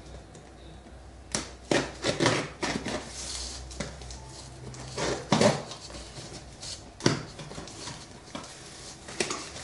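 A phone's cardboard retail box and its packaging being handled and opened: irregular knocks, clicks, scrapes and rustles, loudest about two seconds in, again past the five-second mark and once near seven seconds.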